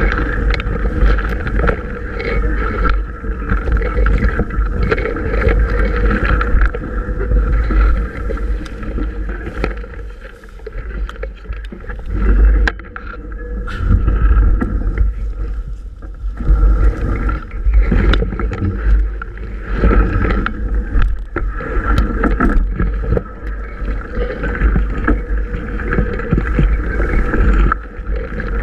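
Mountain bike ridden over a rough, overgrown dirt track: a steady low rumble of wind and jolting on the camera microphone, tall grass swishing against the bike and camera, and frequent rattling knocks from the bike over the uneven ground.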